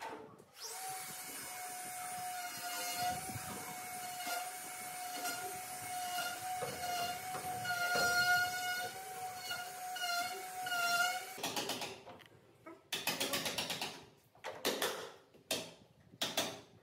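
Steel rollers of a hanging sliding barn door running along the flat steel top track as the door is pushed: a steady ringing whine for about ten seconds. After it come several short bursts of quick clicks and knocks.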